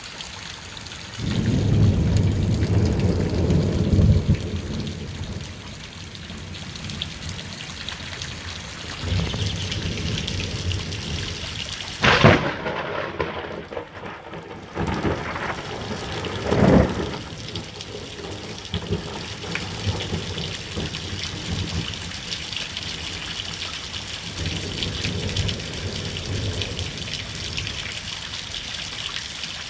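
Rain falling steadily through a thunderstorm, with a low rumble of thunder a second or so in. About twelve seconds in comes a sharp, very loud thunder clap from a strike directly overhead, and the rain's hiss drops away for a couple of seconds after it. A second, smaller crack follows about four seconds later.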